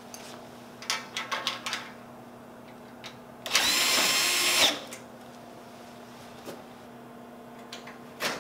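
A cordless drill-driver runs once for about a second, driving a screw into the enclosure frame; its whine holds steady, then sags as it stops. Before it come a few light clicks and rattles of metal hardware being handled, and there is one more click near the end.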